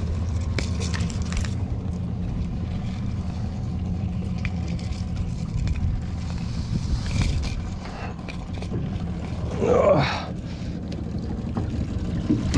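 Small boat's outboard motor idling steadily with a low, even hum, while a crab pot's rope is hauled in by hand over the side of an aluminium hull, giving scattered light scrapes and knocks.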